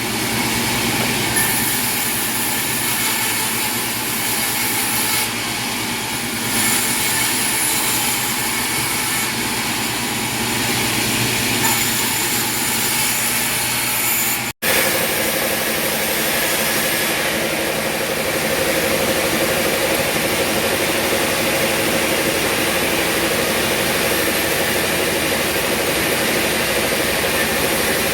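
Sawmill machinery running steadily with a dense mechanical noise. It cuts out for an instant about halfway through and resumes with a steady whine added.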